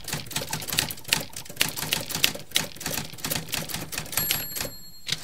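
Typewriter sound effect: a rapid, irregular clacking of keys that goes with text being typed out on screen, with a short high ring about four seconds in.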